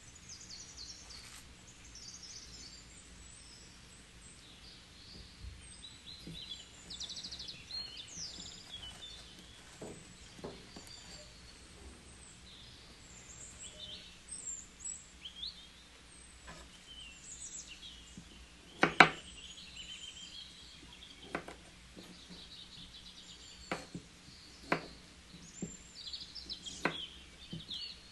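Small birds chirping in the background throughout, with occasional sharp knocks of a chef's knife on a wooden cutting board. The loudest knock comes about two-thirds of the way through, and a run of single cuts, about one a second, comes near the end as radishes are sliced.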